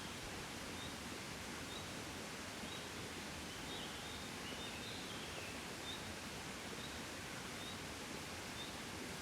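Gentle wind blowing steadily outdoors, a soft even rush. Over it a small bird gives short high chirps about once a second, with a brief twittering phrase near the middle.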